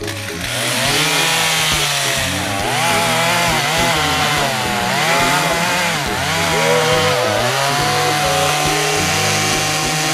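Two-stroke chainsaw cutting through a felled oak trunk. The engine pitch dips and recovers several times as the chain bogs down in the wood, then holds steady at high revs near the end.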